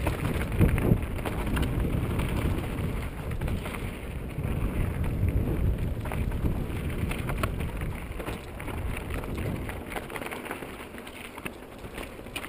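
Wind rushing over the microphone of a mountain bike's mounted camera, with knobby tyres rolling over rocky, gravelly singletrack and many short rattles and clicks as the bike crosses rocks. It eases off near the end.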